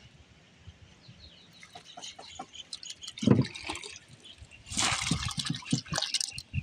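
Water dripping and splashing, with scattered small drips, a dull knock about halfway through, and a burst of splashing near the end.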